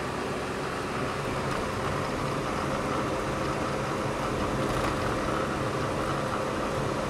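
Steady running noise of a Citroën car heard inside its cabin while driving: an even rush of engine and tyre noise with a faint steady hum.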